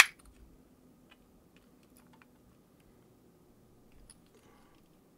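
A sharp plastic snap at the start as a small screwdriver pries at the clip tabs of a Roku voice remote's housing, then faint scattered light clicks as the tip works along the seam.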